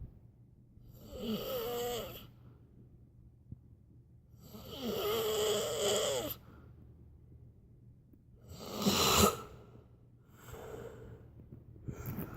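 A man snoring, a snore every three seconds or so with quiet breaths between; the one about nine seconds in is shorter and louder than the rest.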